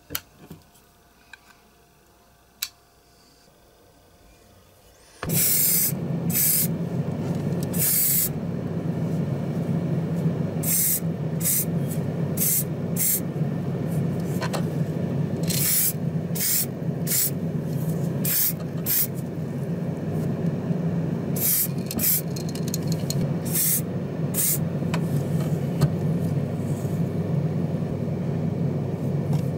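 A few small clicks of a tiny part being trimmed by hand. About five seconds in, a sandblasting cabinet starts up: a steady low hum with many short, repeated bursts of hissing air and abrasive from the blast gun as the die-cast body is stripped.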